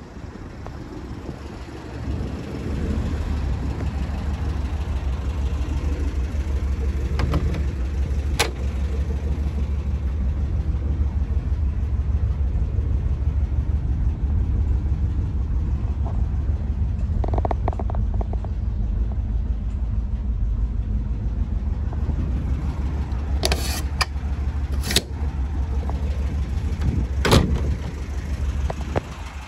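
Volkswagen bus engine idling with a steady low hum that gets louder about two seconds in. A few sharp clicks and knocks come through, the loudest near the end.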